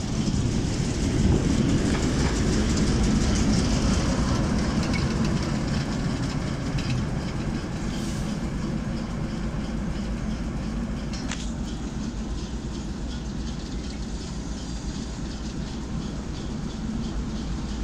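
Class 08 diesel shunting locomotive's English Electric six-cylinder diesel engine running as the loco drives slowly past and away, loudest a couple of seconds in and then fading gradually.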